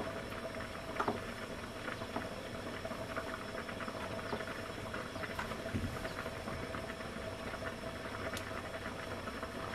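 Pot of rhubarb and water simmering on a gas stove: faint, irregular bubbling and crackling over a steady hiss, with a few louder ticks.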